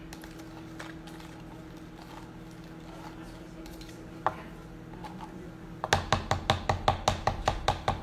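Spoon stirring a liquid yeast starter in a plastic cup, clicking against the cup's side: a single tap about four seconds in, then a quick run of taps about seven a second over the last two seconds.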